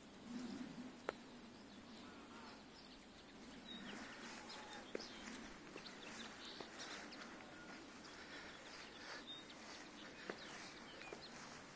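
Quiet backyard ambience: chickens in a wire-mesh coop making soft sounds, with a few faint high bird chirps and light clicks scattered through.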